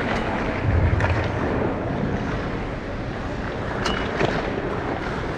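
Ice skates gliding and scraping over a rink, a steady hiss with wind buffeting the camera microphone and a rumble about a second in. Two sharp clicks come about four seconds in.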